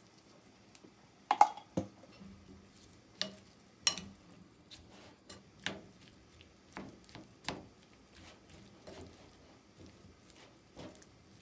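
Kitchen utensils and dishes knocking and clinking in an irregular series of short taps, about a dozen in all. The loudest comes about a second and a half in and rings briefly.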